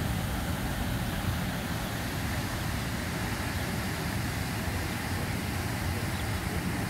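Steady splashing of a public fountain's water jets falling into its basin, over a low rumble.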